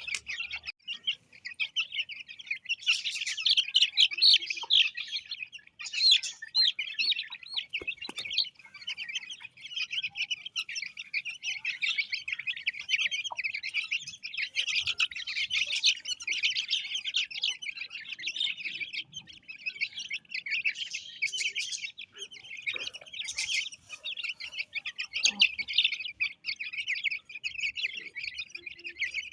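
A brood of many Aseel chicken chicks peeping all at once, a dense unbroken chorus of high, overlapping chirps.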